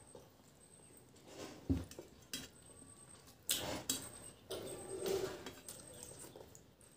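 Fingers mixing rice and fish curry on a stainless steel plate: scrapes and taps against the metal, with one sharp knock about two seconds in and a louder run of scraping in the middle.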